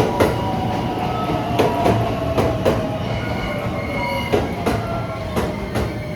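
A train moving along the platform, its wheels knocking irregularly over rail joints under a steady rumble, with a thin whine that falls slowly in pitch over the first few seconds.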